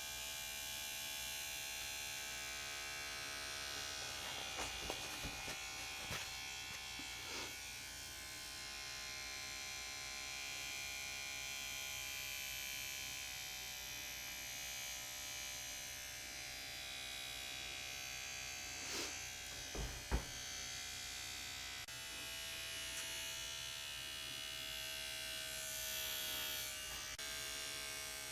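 Small handheld electric motor buzzing steadily as the tattoo-machine buzz. A few soft taps come about five seconds in, and two sharper knocks come around twenty seconds in.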